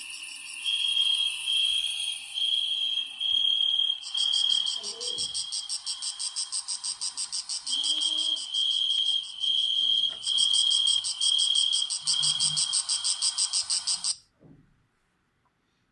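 Sagem myW-8 mobile phone playing a nature-sound ringtone of chirping insects through its small speaker: a dense high trill with a higher chirp repeating about twice a second. It cuts off suddenly near the end.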